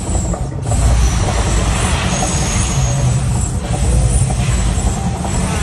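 Mirage volcano show erupting: a deep, continuous rumble as gas fire jets burst on the volcano and across the lagoon, growing louder just before a second in.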